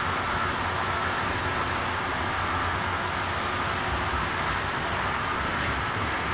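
Steady noise inside a metro carriage: a low rumble under an even hiss, unchanging throughout.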